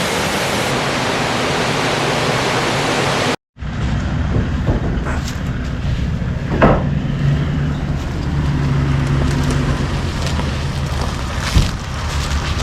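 A waterfall's steady rushing roar, which cuts off abruptly about three and a half seconds in. After the cut comes a vehicle engine's low, steady drone as it drives, with a few knocks and rattles.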